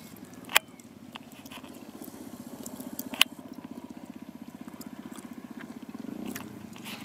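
Distant off-road motorcycle engine running out of sight, a steady pulsing drone that swells slightly near the end. Two sharp clicks, about half a second and three seconds in.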